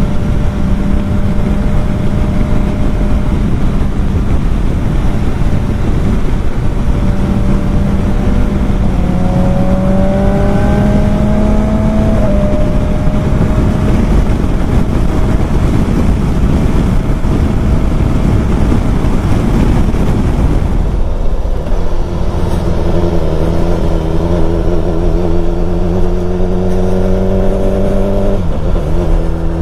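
Motorcycle engine running at highway speed with heavy wind noise on the microphone. A third of the way in, its pitch rises under acceleration and then drops with a gear change. Past the middle, the wind eases as the bike slows, then the engine pulls up again and shifts once more near the end.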